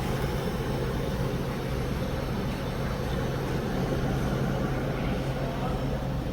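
Steady low machinery hum with an airy rush behind it, unchanging throughout.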